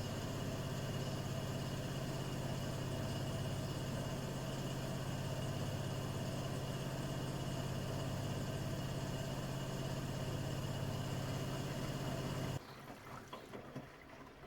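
Bosch Serie 6 WAT286V0 washing machine running with a steady low hum that cuts off abruptly near the end, followed by a few faint clicks.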